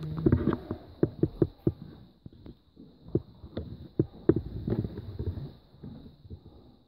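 Footsteps on an old wooden floor littered with debris: a string of irregular knocks and thuds, busiest in the first couple of seconds and again about four to five seconds in. A faint steady high whine sits underneath.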